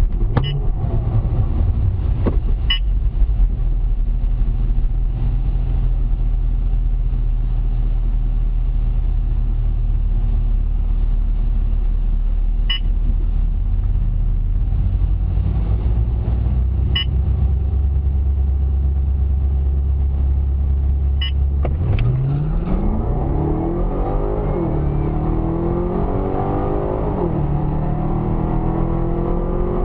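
Chevy SS's V8, heard inside the cabin, idling steadily at the start line, then launching at full throttle about three-quarters of the way through on a quarter-mile drag run: the engine pitch climbs sharply and drops twice at the upshifts.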